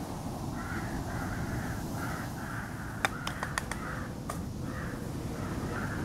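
Crows cawing repeatedly, short rough calls about twice a second, with a quick run of five sharp clicks about three seconds in.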